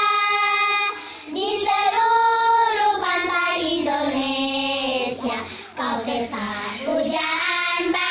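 A group of children singing a song in Indonesian in unison, holding long notes, with short pauses for breath about a second in and again near six seconds.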